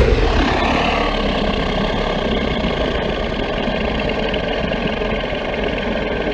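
A Godzilla monster sound effect: a loud, steady rumbling rush of noise with a faint held tone in it, starting suddenly and cutting off after about seven seconds.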